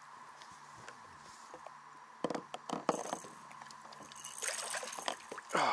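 Water splashing as a hooked largemouth bass is grabbed by the lip at the boat's side and lifted out: a few short sharp splashes about two seconds in, then a longer splashing, dripping stretch later on.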